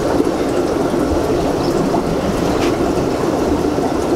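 Aquarium water trickling and splashing steadily, the constant running-water noise of the tanks' filtration and plumbing.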